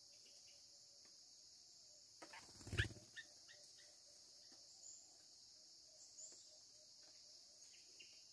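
Steady high drone of forest insects, faint. A little before three seconds in comes a brief, loud rustle and knock, followed by a few faint clicks.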